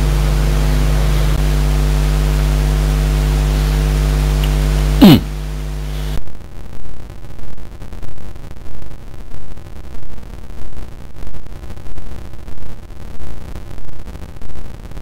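A steady electrical hum with a ladder of overtones. About five seconds in there is a brief, very loud falling whistle-like glide. Then the sound cuts abruptly to a regular pulsing, about three pulses every two seconds.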